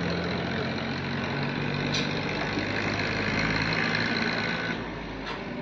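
An engine running steadily at idle, with a couple of faint clicks.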